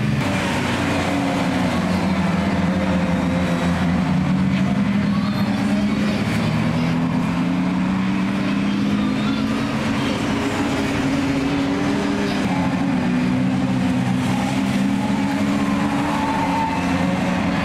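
Several classic Mini race cars' engines running together as they lap through a corner, a steady drone whose pitch drifts up and down.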